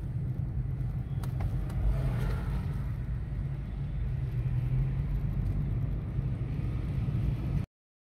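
Car cabin noise while driving at low speed: a steady low engine and road rumble, which cuts off suddenly near the end.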